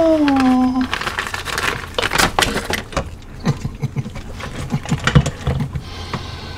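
Shredded cheese poured from a bag into a stainless steel pressure-cooker pot, then a spoon stirring thick macaroni, scraping and knocking against the pot in quick uneven clicks.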